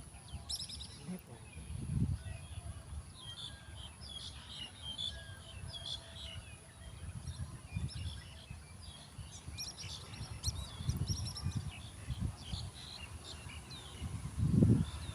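Small birds chirping on and off, high and short, over low rumbling thumps that grow loudest near the end.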